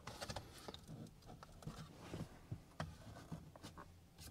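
Faint, scattered plastic clicks and rubbing as a rearview mirror's trim cover is worked onto the mount and snapped into place.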